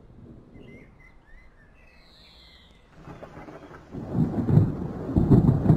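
Thunder rumbling: a low rumble dies away, then about three seconds in a louder rolling rumble builds and stays loud to the end.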